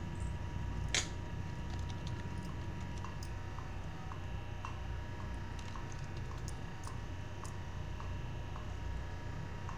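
Steady low hum with a sharp click about a second in, then faint, evenly spaced ticks about twice a second.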